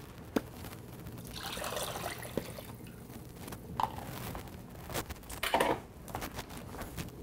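Water poured into a bowl of groundnut (peanut) paste and mixed in to thin it, with several short knocks of bowls and utensils, the loudest a little past the middle.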